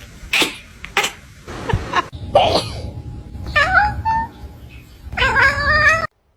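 A person coughs several times in short, sharp bursts. Then a house cat meows twice in reply; the second meow is longer and cuts off abruptly.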